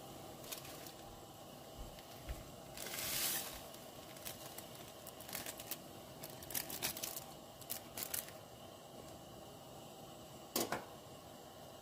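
Bag of seafood-boil seasoning being torn open and crinkled, with a short rasping tear about three seconds in, scattered small clicks and crackles, and a sharper click near the end.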